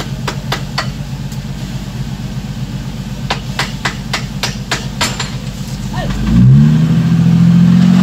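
A heavy-equipment diesel engine running at low speed, with a string of sharp knocks over the first five seconds. About six seconds in it revs up, rising in pitch and getting louder.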